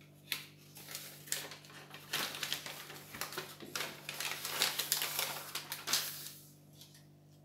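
A paper instruction leaflet rustling and crinkling as it is handled and folded by hand: a run of crisp crackles that dies away about six seconds in.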